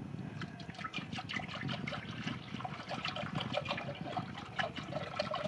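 Milk pouring from a carton into a large stainless-steel pot, splashing into it in an irregular stream.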